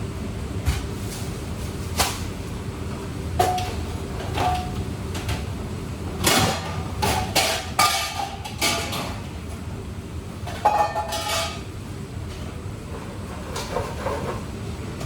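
Kitchen utensils and dishes being handled and set down: scattered knocks and clinks, some ringing briefly, coming in clusters over a steady low hum.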